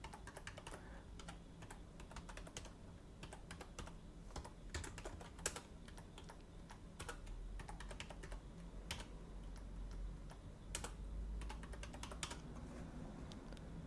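Faint typing on a computer keyboard: irregular keystrokes in short runs with pauses between them, over a faint low hum.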